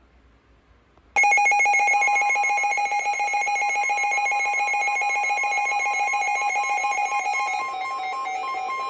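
Midland WR400 weather radio going off with its loud, rapidly pulsing electronic alert alarm, starting suddenly about a second in, with the NOAA Weather Radio 1050 Hz warning tone sounding steadily underneath from about two seconds in: the alarm for an incoming severe thunderstorm warning.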